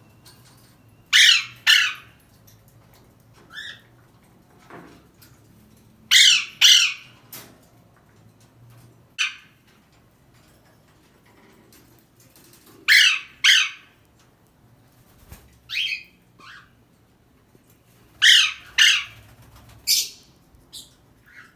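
Pet parrot squawking: loud, harsh calls, mostly in pairs, repeating every five to seven seconds, with softer short chirps in between.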